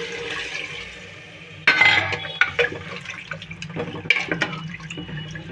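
Water pouring into an aluminium pressure cooker over spiced mutton trotters. About a second and a half in, a ladle begins stirring, with several clinks against the metal pot.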